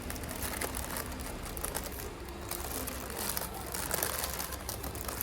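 Paper rustling, with light irregular taps and clicks from desk work.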